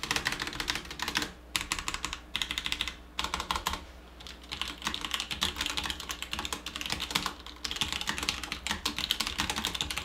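Typing test on a Roccat Vulcan 121 Aimo low-profile mechanical keyboard with linear Titan Red switches: rapid runs of keystrokes broken by brief pauses.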